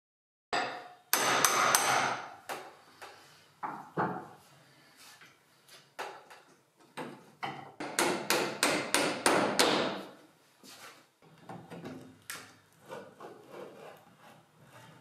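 Hammer blows and knocking on old iron nails in the wooden cupboard, with a quick run of sharp strikes about eight seconds in, then lighter clicks and scraping as pincers work a nail loose.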